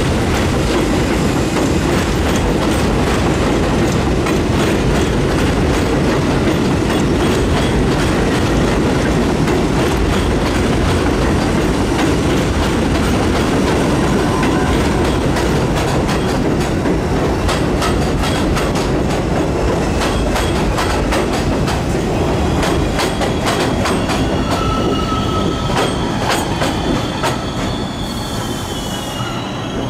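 New York City Subway R62A train running on an elevated steel structure: a loud, steady rumble with regular wheel clicks over rail joints. Later on, thin high-pitched wheel squeals come in over the rumble.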